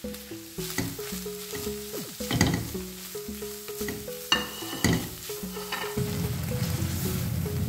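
A silicone spatula stirs shredded chicken filling in a pan, with a few sharp knocks and a brief clink against the pan, then a steady frying and stirring sizzle in the last couple of seconds.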